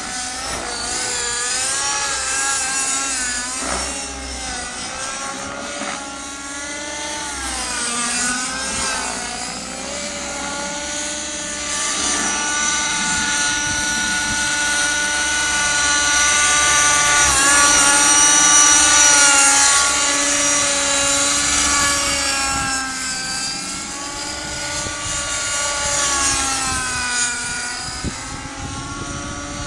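Align T-Rex 600N nitro RC helicopter in flight. Its glow engine runs continuously, and its pitch rises and falls repeatedly as the helicopter manoeuvres. It is loudest a little past the middle.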